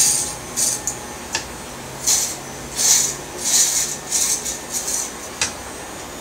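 Electric hair clippers fitted with a one-inch guard, pushed up through the hair on top of the head in repeated passes. Each pass is a short hissing rasp of hair being cut, over a faint steady motor hum, with a couple of sharp clicks. The passes stop about five seconds in.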